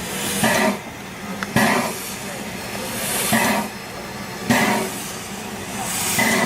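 Narrow-gauge steam locomotive chuffing slowly: five separate exhaust beats, about one every second and a half, over a steady low hum.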